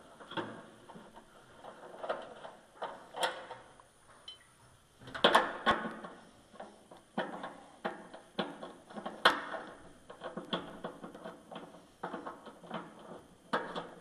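Irregular metallic clicks and knocks of a hand nut driver and loose parts being worked inside a furnace's sheet-metal blower compartment, with a louder cluster of knocks about five seconds in and another sharp knock about nine seconds in.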